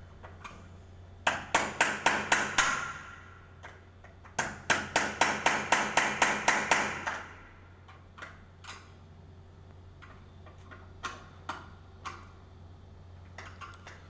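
Two runs of quick, hard strikes with a ringing tail, about four a second, the second run longer, then a few scattered light taps over a steady low hum.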